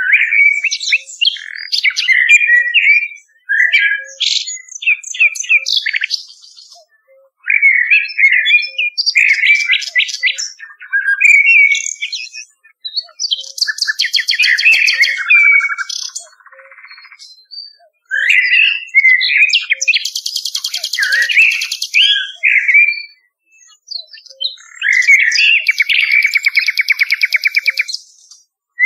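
Common nightingale singing: varied phrases of fast trills and rapidly repeated notes, each a second or two long, with short pauses between them.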